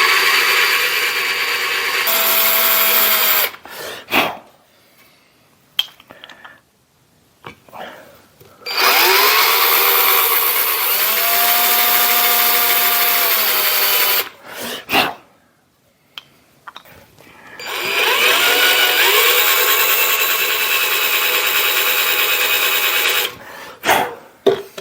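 Power drill with a small 93-thousandths bit drilling shallow holes into a cast-iron casting, three runs of a few seconds each. The motor whine rises as it speeds up at the start of each run. The holes are a key for epoxy filler to grip.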